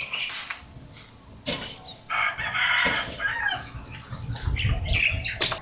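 Chickens clucking, with a rooster crowing for about a second, some two seconds in.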